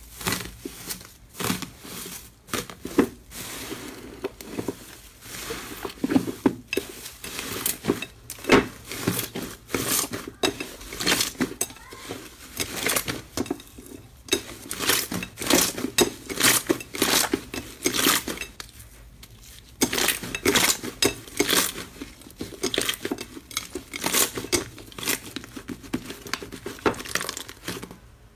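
Gold foil crinkling and tearing as hands press into an inflated mound of black slime beneath it, then the sticky slime crackling and popping in quick bunches of sharp clicks as it is stretched and kneaded in a glass bowl.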